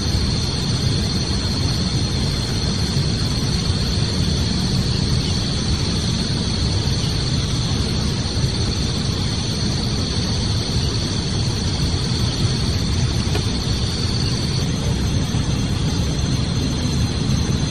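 Steady wind rumbling on the microphone, with a constant high-pitched whine behind it that eases slightly near the end.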